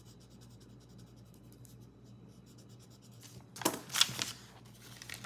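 Pen scribbling rapidly on paper as a circle on a savings-challenge sheet is coloured in. About three and a half seconds in, a louder rustle and crinkle follows as the clear plastic pouch of a cash binder is handled.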